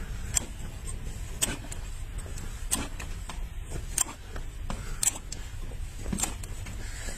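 Curved hoof knife slicing horn from a horse's hoof, a short sharp cutting stroke about once a second, over a steady low rumble.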